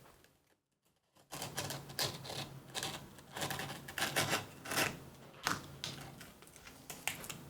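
Scissors snipping through a granulated adhesive grip tape panel in a run of short, crisp cuts, starting about a second in.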